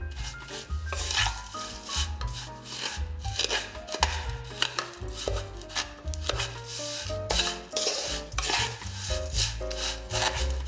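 A utensil scraping and stirring in a cooking pan in repeated strokes, over background music with a melody and bass line.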